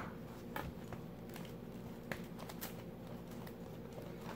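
Faint handling noises: a scattering of light clicks and taps over a low room hum, as a sealed trading card box is handled.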